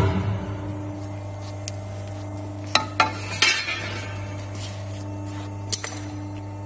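CNC pipe bending machine running with a steady hum, with a few sharp metallic clinks about three seconds in and again near six seconds.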